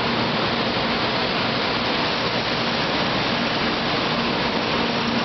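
500 Series Shinkansen train rolling along the platform as it pulls in, a steady rushing noise of wheels and air.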